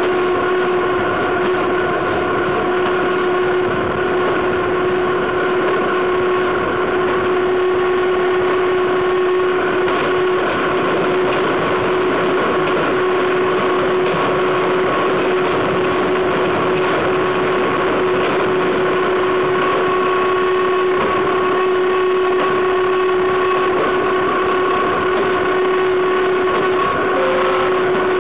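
Freight wagon's steel wheels rolling fast on the rails, heard up close at the bogie: a steady loud rolling rush with a constant ringing tone running through it.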